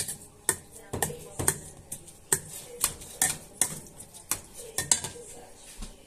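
Wire potato masher clinking against a stainless steel bowl while mashing cooked cauliflower, about two sharp metal clinks a second, stopping about five seconds in.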